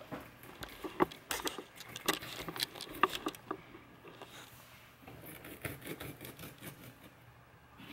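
Kitchen knife cutting peeled raw potatoes on a cutting board: a run of sharp knocks and scrapes as the blade goes through and strikes the board, in two spells with a short pause between.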